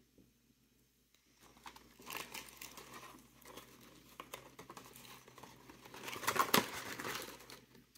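Packaging crinkling and rustling as it is handled and opened, starting about a second and a half in and loudest about six and a half seconds in.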